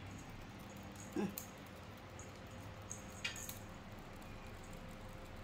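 A cat gives one short mew that falls in pitch about a second in, with a few light clicks and taps of play around it.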